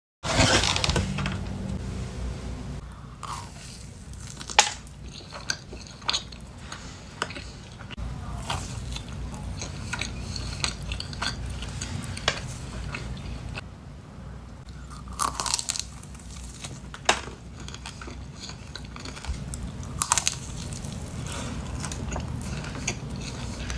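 A person biting into and chewing a donut, with scattered crisp crunches and wet chewing sounds.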